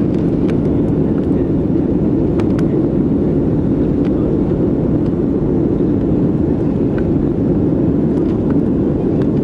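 Steady cabin noise inside a Boeing 737-500 in flight: an even rushing drone of airflow and its CFM56-3 engines, with a few faint clicks.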